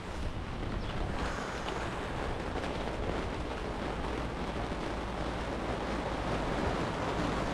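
Steady rain falling, an even hiss, with wind rumbling on the microphone.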